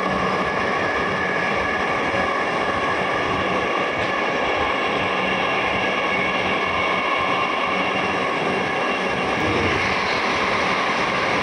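Dhaka Metro Rail train heard from inside the carriage while running at speed: a steady electric-train whine of several even tones over the hiss of wheels on rail. It swells slightly near the end as a train passes on the other track.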